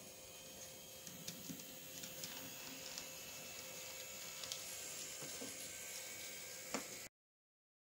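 N scale Kato Alco PA-1 model diesel locomotive and passenger car running on track, a faint steady motor whir with small scattered wheel clicks. A sharper knock comes near the end, and the sound cuts off abruptly just after.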